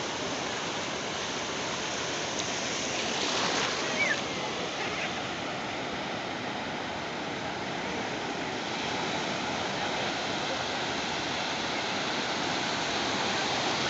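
Ocean surf breaking and washing up the sandy shore: a steady rush of waves, swelling slightly a few seconds in.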